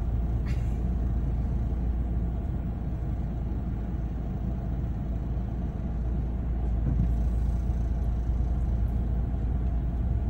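Steady low road and engine rumble heard inside a moving car's cabin.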